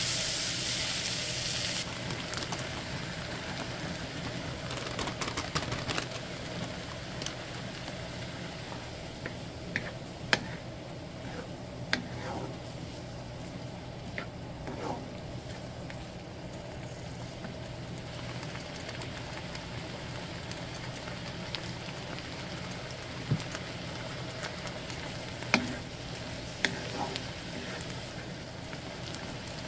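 Vegetables sizzling in a hot frying pan while a wooden spatula stirs them, with occasional sharp clicks and knocks. The sizzle is louder for about the first two seconds, then settles to a quieter steady sizzle.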